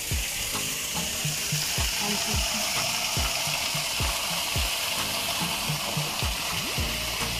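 Water spilling over the lip of a small stone garden waterfall and falling into its channel: a steady, even splashing rush. Soft low thumps come about twice a second beneath it.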